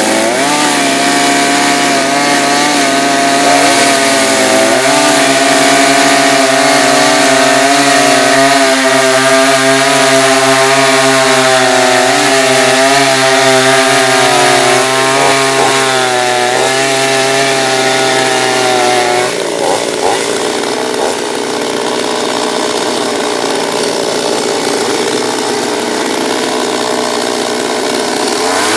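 Chinese clone two-stroke chainsaw running at high revs while cutting a maple log, its pitch dipping and recovering as the chain loads in the wood. About two-thirds of the way through the steady note breaks up and the sound changes.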